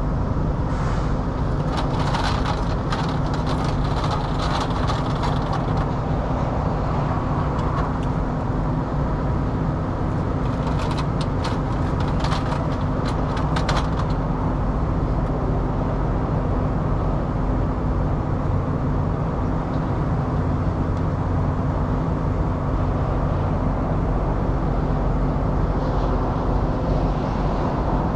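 Steady low drone of an idling diesel truck engine. Two spells of light clicking and rattling come over it, a couple of seconds in and again about halfway through.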